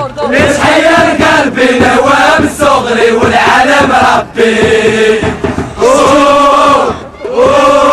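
Football supporters' chant sung in unison by many male voices, in long phrases with brief breaks between them.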